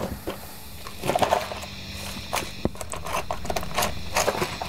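Scattered clicks and knocks of handling, with a few brief pitched ticks about a second in, over a steady low hum from the guitar amplifier.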